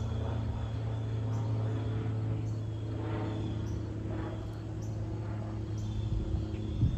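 Extra EA-330LT aerobatic plane's propeller and six-cylinder Lycoming engine droning steadily overhead on its landing approach; the drone stops near the end. Faint high chirps sound about once a second.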